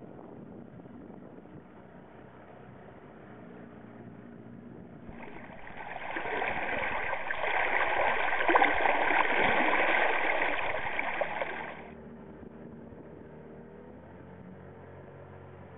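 Water rushing and splashing along a small boat's hull as it moves through choppy waves, swelling loud about five seconds in and dropping back about seven seconds later, with steady water and wind noise either side.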